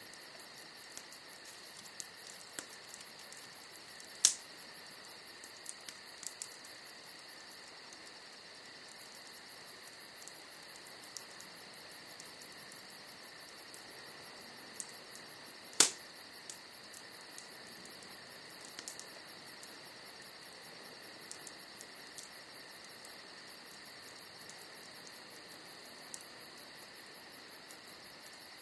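Bonfire of burning wood crackling, with scattered small snaps and two sharp loud pops about four and sixteen seconds in. Behind it runs a steady, high, pulsing trill.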